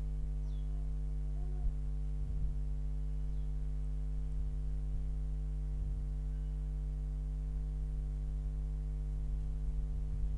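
Steady electrical mains hum: a low buzz with a row of evenly spaced overtones, unchanging, with a few faint low knocks here and there.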